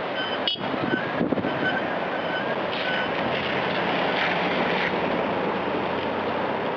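Floodwater rushing through the wadi as a steady, dense roar, with a few faint short high beeps in the first three seconds.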